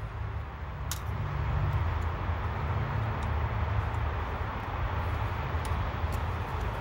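Steady low background rumble, with a few faint clicks as plastic fuel injector harness connectors are handled and pushed onto an LS1 engine's injectors.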